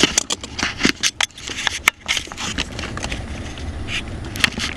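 Irregular scraping and sharp clicks of plastic and rubber parts being handled and fitted at a pickup's steering column, over a steady low rumble.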